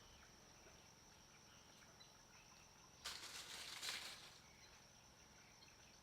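Faint, steady high-pitched insect drone in the background, with a short burst of rustling noise lasting about a second and a half, starting about three seconds in.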